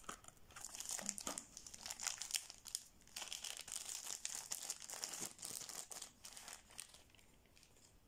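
Clear plastic wrapping crinkling and rustling in irregular crackles as hands pull a knife out of it, dying away about a second before the end.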